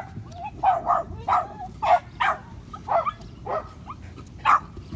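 Patterdale terrier puppy giving a rapid series of short, high yips and whines, about two or three a second.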